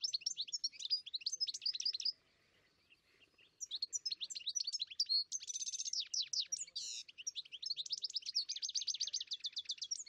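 A songbird singing a fast, twittering song of quick chirps and rapid trills. It breaks off for about a second and a half about two seconds in, then resumes with long rapid trills.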